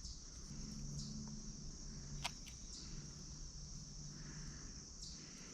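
Crickets chirring steadily in a high, thin band, with a few faint clicks, the sharpest about two seconds in.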